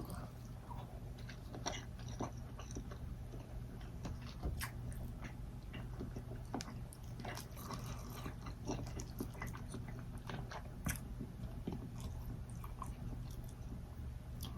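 A person chewing and biting food close to the microphone, with many small irregular mouth clicks and smacks over a steady low hum.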